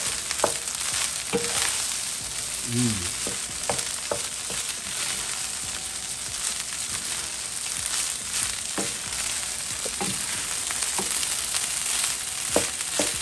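Rice frying in oil in a nonstick skillet with a steady sizzle. A wooden spatula scrapes and taps against the pan now and then as the rice is stirred.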